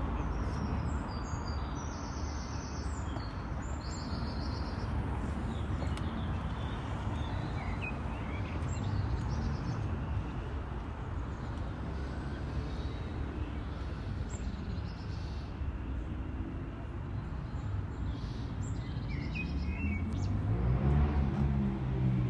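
City street ambience: a steady rumble of traffic with birds chirping now and then. Near the end a vehicle engine comes closer and gets louder, its pitch rising.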